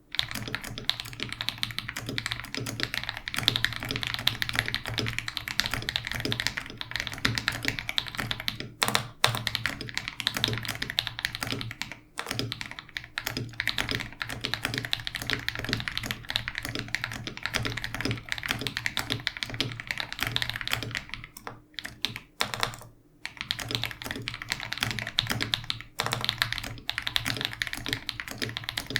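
Fast, continuous typing on a KBD67 Lite R2 mechanical keyboard with lubed KTT Haluhalo switches and Geekark BoW keycaps: a dense stream of key clacks with a couple of short breaks partway through, around the middle and about three quarters in.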